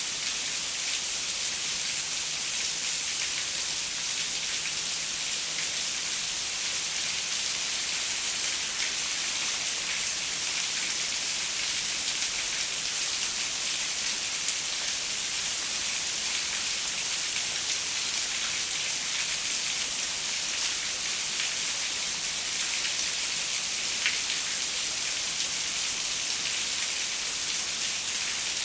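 Steady rain pattering on a window: an even hiss of many small drop ticks, with one slightly sharper tick near the end.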